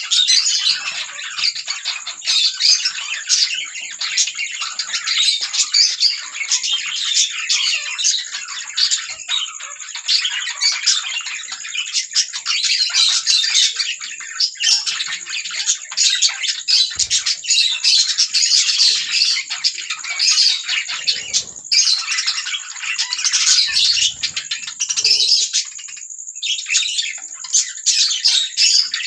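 A flock of budgerigars chattering and warbling continuously, many overlapping chirps at once.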